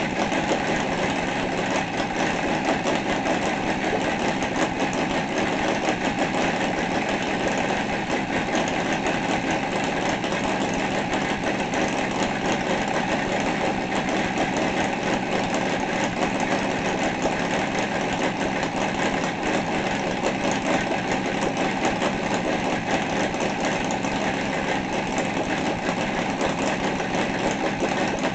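Seidel 7-70 seven-cylinder 70cc four-stroke glow radial model engine running steadily, its speed unchanging throughout.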